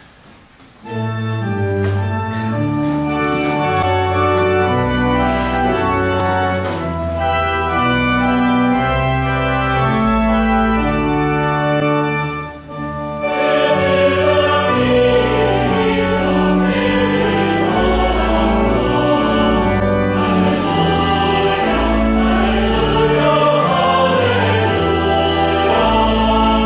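Church pipe organ playing a festive introduction of held chords over deep pedal notes. About halfway through, a choir comes in singing with the organ.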